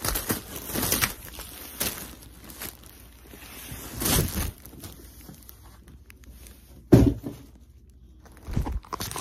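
Cardboard box and the plastic bags of clothing inside it being shifted and rustled right against the microphone, in irregular bursts, with a heavy thump about seven seconds in.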